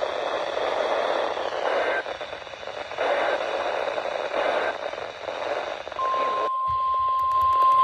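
Hissing static from a weather radio receiver. About six seconds in, a steady single-pitch alert tone starts and the static cuts out: the NOAA Weather Radio warning alarm tone that comes before a broadcast warning.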